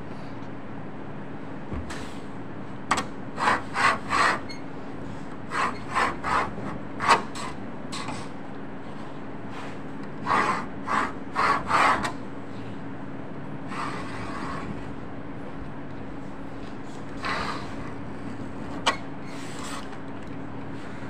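A hand knife cutting through a sheet of stiff paper in short scraping strokes, in quick runs of three or four, with a single sharp click near the end.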